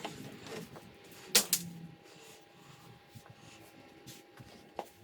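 Scattered clicks and clacks of parts and tools being handled while the intake is taken out of the engine bay, with two sharp knocks about a second and a half in. A faint steady tone runs underneath.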